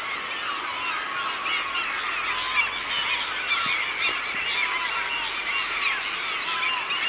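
A large flock of gulls calling all at once: a dense, unbroken chorus of many overlapping cries, from birds massed to feed on a run of hooligan (eulachon).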